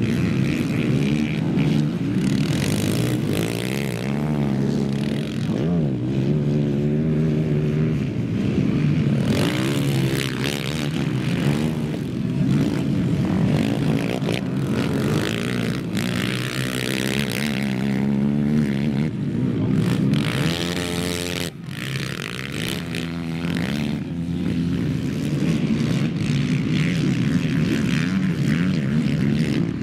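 Several racing quad (ATV) engines revving hard as the quads pass, overlapping one another, their pitch climbing and dropping over and over as the riders open and close the throttle.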